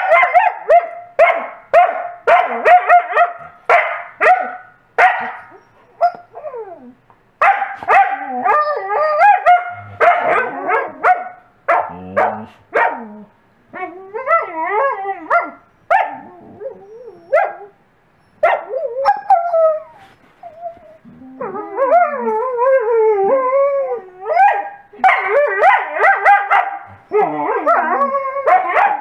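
Wolfdogs vocalising over a toy. The Coastal Wolf barks in quick repeated runs, at the start and again near the end, demand-barking for a toy. In between, the wolf–malamute cross gives long whines whose pitch slides and wavers up and down, a happy, excited whining.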